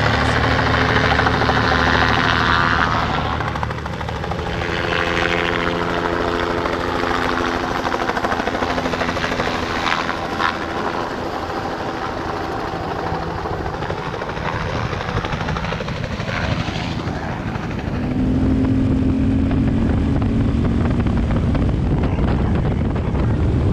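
Helicopter flying low overhead, its rotor and engine running steadily. About three-quarters of the way through, the sound changes to a KTM 690 Enduro's single-cylinder engine running as the motorcycle rides along a dirt track.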